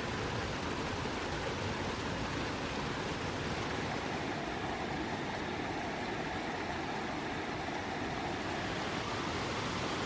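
Mountain stream cascading over granite boulders into pools, a steady rushing of falling water.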